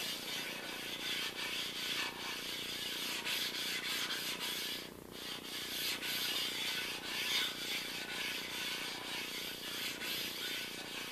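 Abrasive stone rubbed back and forth along the cast-iron ways of an Atlas lathe bed, a steady gritty scraping with a brief pause about five seconds in. The ways are being stoned flat to take down raised spots around dings.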